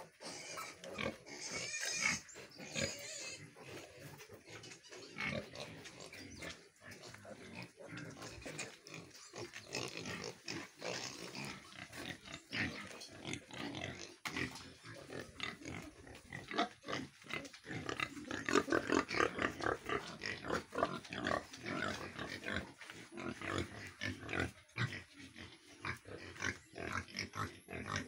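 Pigs and piglets calling: a steady run of short, irregular grunts and squeals, thickest a little past the middle.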